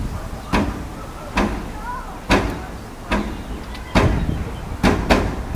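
An agitated chimpanzee punching a metal door: six loud bangs at irregular gaps of about a second, the last two in quick succession.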